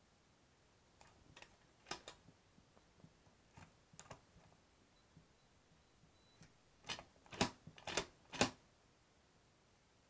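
Soft, scattered clicks of fingers pressing the push buttons on a Schlage BE365 keypad deadbolt to enter the code, with a louder run of about five clicks near the end.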